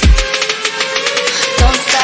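Background music: an electronic hip-hop track with deep falling bass hits.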